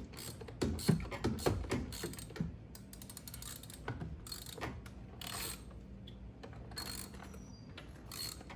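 Hand ratchet clicking in quick runs as it turns the T27 Torx bolts behind a steering wheel, loudest in the first few seconds. The captive bolts loosen but stay in their holes, so the ratcheting goes on and on.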